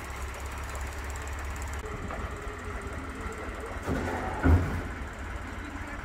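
Farm tractor engine running steadily at low revs, a low rumble. A single loud knock comes about four and a half seconds in.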